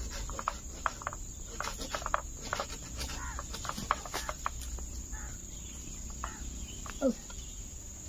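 Steady high-pitched insect drone, with scattered light clicks and rustles as a tree branch is handled.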